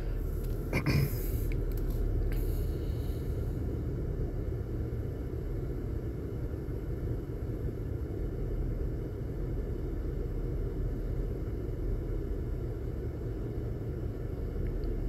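Wind buffeting the microphone in a steady low rumble, over a faint patter of engine coolant spraying into a drain pan from the radiator petcock.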